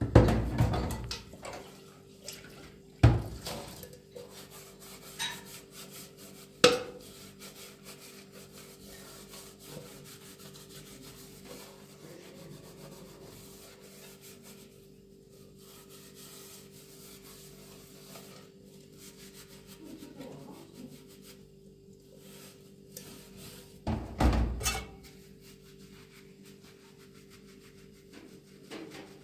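Dishes being washed by hand in a stainless steel sink: a metal pot scrubbed, with several loud clanks of pots and bowls knocking against the sink, the loudest just after the start and near the end. A steady low hum runs underneath.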